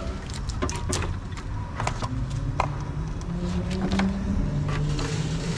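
Scattered light clicks and knocks of a hose and metal bracket being handled and fitted in an engine bay, over a steady low rumble. From about halfway through, a low hum slowly rises in pitch.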